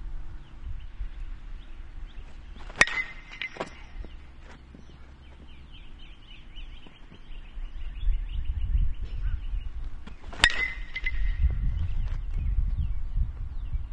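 Metal baseball bat striking a pitched ball twice, about seven and a half seconds apart, each hit a sharp ping with a short ring. Wind rumbles on the microphone between the hits.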